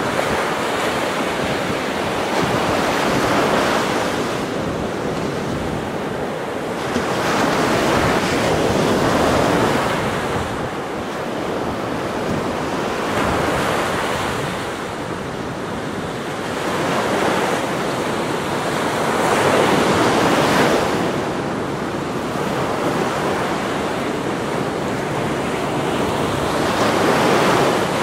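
Ocean surf breaking on a sandy beach: a steady rushing wash that swells and fades every few seconds as waves break and run up the shore.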